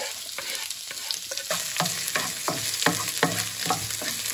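Chopped red onion and green chillies sizzling in hot oil in a wok, stirred with a wooden spatula that scrapes the pan about three times a second from about a second and a half in.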